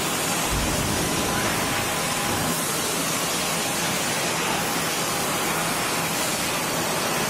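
Steady factory-floor background noise: an even hiss at constant level with a faint low hum under it.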